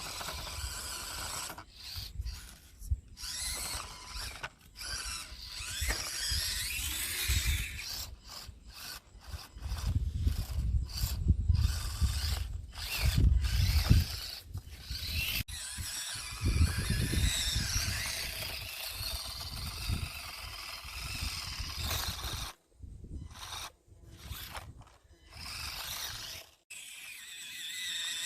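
Axial SCX24 micro rock crawler's small electric motor and plastic gears whirring and clattering in many short stop-start bursts as it crawls over rock.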